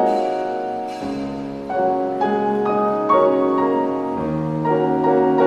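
Slow instrumental background music: held notes and chords, a new one starting about every second.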